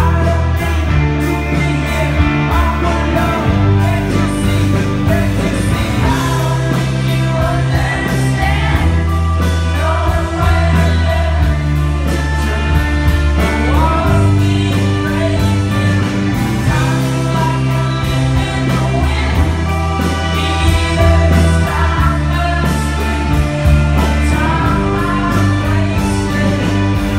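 Live rock band playing loudly with a male lead singer singing into the microphone, heard from the audience.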